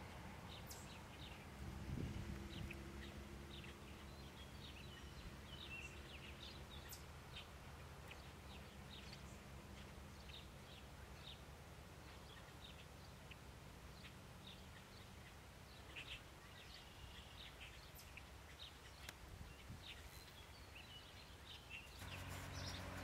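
Antique tractor engines running faintly at a distance, a steady low hum, while birds chirp often over it.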